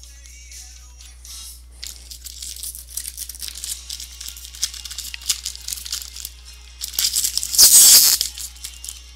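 Baseball cards shuffled by hand and a Topps card pack's wrapper crinkling, then torn open with a loud rip lasting about a second, some seven seconds in.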